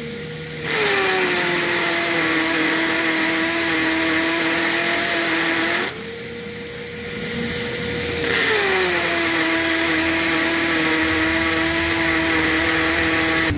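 Cordless drill boring anchor holes through a steel base plate into a concrete floor: a motor whine that drops in pitch as the bit bites, under loud gritty drilling noise. It drills twice, with a lighter, higher-pitched spin between about six and eight seconds in.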